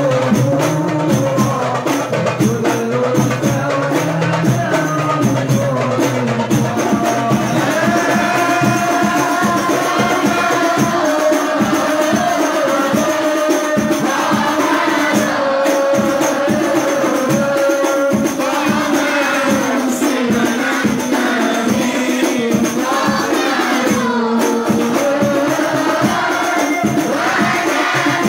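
Hadroh ensemble: voices singing an Islamic devotional song over rebana frame drums beating a steady, quick rhythm.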